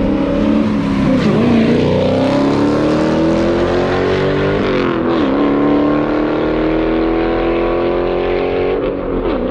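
Dodge muscle car's V8 accelerating hard down a drag strip, the engine note climbing in pitch and dropping sharply with an upshift about a second and a half in, another about halfway through and a third near the end.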